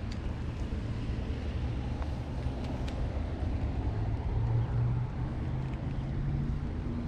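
Low rumble of road traffic passing near the creek, with an engine hum swelling about two-thirds of the way through, a few faint ticks and some wind on the microphone.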